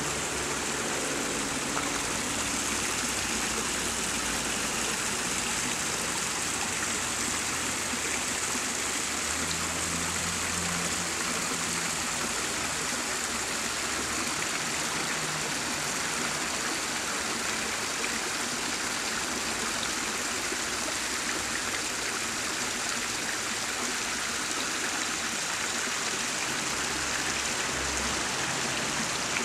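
Small creek trickling over rocks: a steady, even sound of flowing water.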